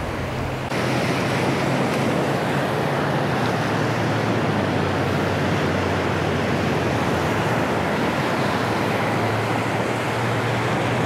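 Ocean surf breaking and washing up a sandy beach: a steady, unbroken rush of waves that grows a little louder about a second in.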